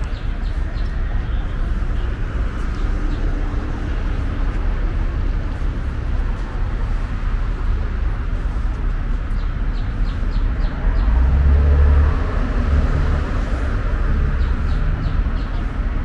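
Steady low rumble of city traffic, swelling briefly about eleven seconds in, with a few faint bird chirps over it.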